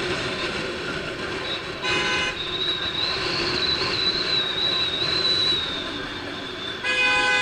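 A horn honks twice over street traffic: a short blast about two seconds in, then a longer, louder one starting near the end.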